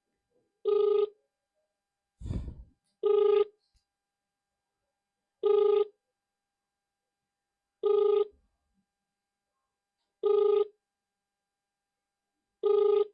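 Telephone ringback tone heard through the phone: short beeps of a low tone repeating about every two and a half seconds while the call rings, waiting to be answered. A brief low thump comes about two seconds in.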